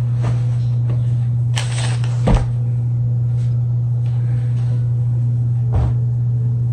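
Clothes rustling as they are folded and put into a dresser drawer, with a thud a little past two seconds in and a softer knock near six seconds. A steady low hum runs underneath throughout.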